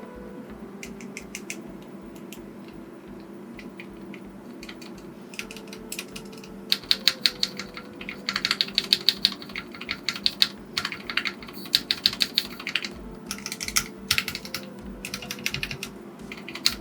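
Typing on a mechanical keyboard: a few scattered keystrokes at first, then fast runs of clacky keypresses with short pauses between them.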